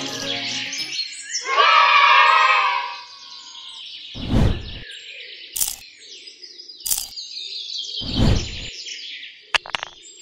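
Birds chirping and tweeting, loudest in a dense burst from about one and a half to three seconds in, then sparser. Four short dull thumps come at roughly even spacing in the second half, and a music track fades out about a second in.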